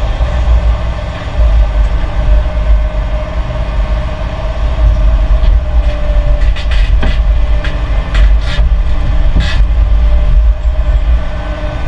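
Excavator working limestone, its diesel engine running with a loud, steady low rumble and a steady whine. From about five and a half to nine and a half seconds in, a run of sharp knocks sounds over it.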